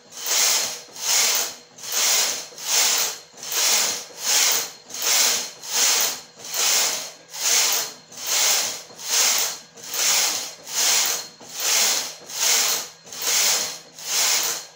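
Flatbed domestic knitting machine, its carriage pushed back and forth across the needle bed, knitting one row per pass. Each pass is a swish, about eighteen in steady rhythm, a little over one a second.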